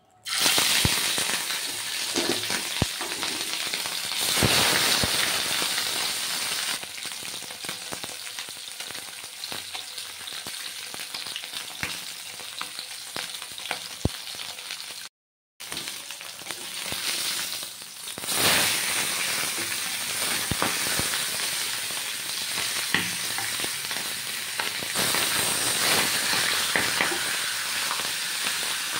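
Pieces of turmeric-marinated katla fish frying in hot oil in a pan: a steady sizzle with a constant patter of small crackles, surging suddenly as the fish goes into the oil at the start and again about 18 seconds in, with a short break just past halfway.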